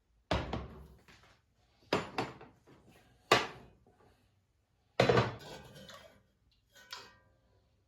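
Dishes and cookware being handled: about five separate clattering knocks and clinks, some ringing briefly, the loudest about five seconds in.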